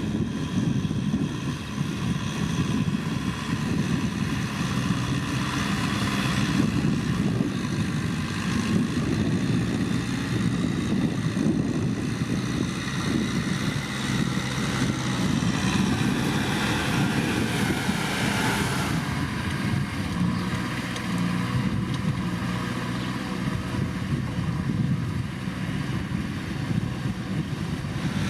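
Kubota M6040SU tractor's diesel engine running steadily under load while ploughing, its note shifting slightly about two-thirds of the way in.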